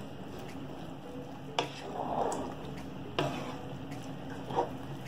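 Wooden spatula stirring wet, seasoned chickpeas in a pan: a soft squishing of the chickpeas in their liquid, with three short knocks of the spatula against the pan about a second and a half apart.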